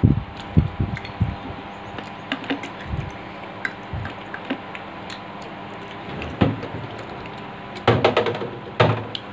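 Scattered soft knocks and clicks from eating pasta with forks off a paper plate, over a faint steady hum. A louder cluster of sounds comes about eight seconds in.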